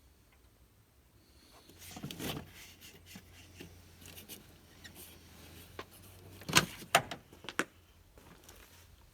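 A few sharp clicks and knocks of parts and tools being handled in a van's engine bay, the loudest pair about two-thirds of the way through, over a faint low hum.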